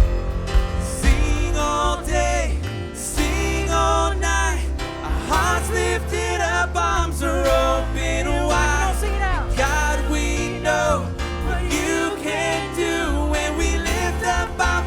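Live worship band playing a song, with singing over bass, drums, guitars and keyboards.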